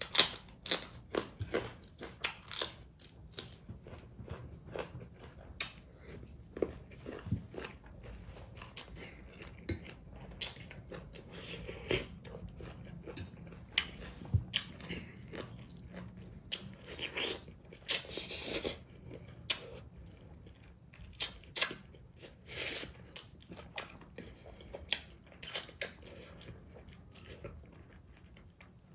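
Close-up eating sounds: a person chewing and biting food, with many irregular wet clicks and crunches, a few louder crunches in the second half.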